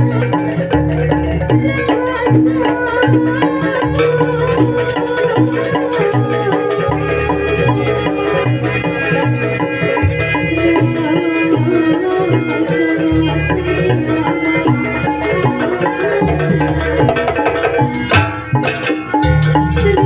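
Live jaranan band music: hand drums beat a steady, driving rhythm under the ringing melody of wooden xylophones and a violin.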